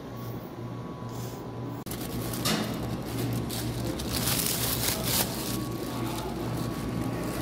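Plastic carrier bag of takeaway food rustling and crackling as it is carried while walking, loudest about four to five seconds in.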